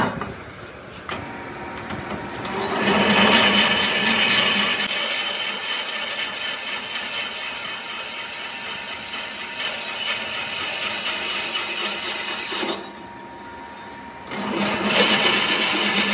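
Drill press boring bolt holes through the flange of a cast iron truck brake drum: the bit cuts steadily for about ten seconds, stops for a second or so, then cuts again near the end. A metal clink at the start as the heavy drum is set down on the table.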